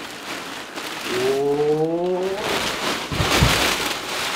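Black plastic garbage bag rustling and crackling as whole artichokes are gathered and dropped into it, with dull thuds about three seconds in. A brief, slightly rising pitched tone sounds in the middle.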